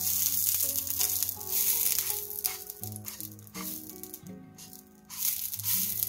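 Cooking oil sprayed from a metal oil-mister bottle onto a hot frying pan, hissing and sizzling. It starts suddenly, dies away about four and a half seconds in, and comes back with a second spray about five seconds in.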